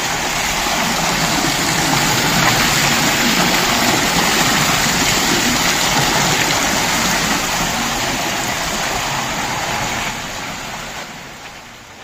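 Water from a wall fountain's spout waterfalls falling in sheets and splashing into a shallow collecting trough, a steady rushing splash. It grows fainter near the end.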